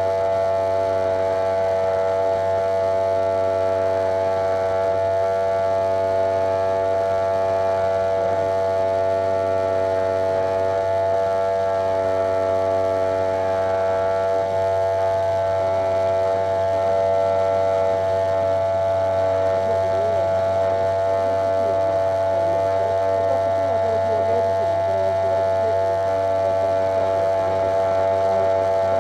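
Wahl electric hair clipper running with a steady, even buzz, heard up close from right on the clipper body as its blades pass through a client's hair.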